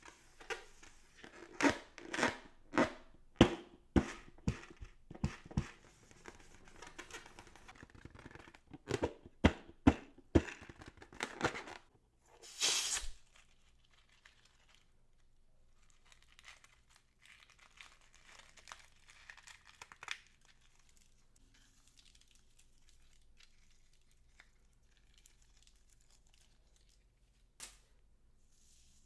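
Hands working slime-making materials: about a dozen sharp snapping crackles over the first twelve seconds, then a brief loud tearing rip, then only faint handling sounds with one click near the end.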